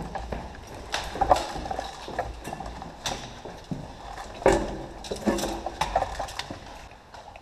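Irregular knocks and clatter of gear and rifle handling from a moving airsoft player, heard close up through a rifle-mounted camera, with brief muffled voices about halfway through.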